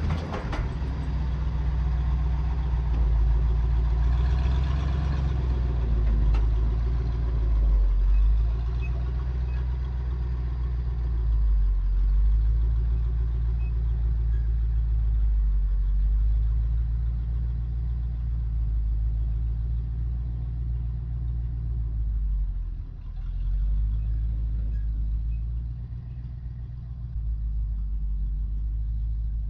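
Ford F600 dump truck's engine running as the truck is moved, a steady deep engine sound that swells and eases a little.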